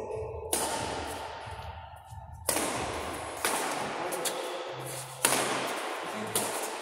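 Badminton rally: rackets striking the shuttlecock five times, each sharp crack followed by echo off the hard walls of the hall.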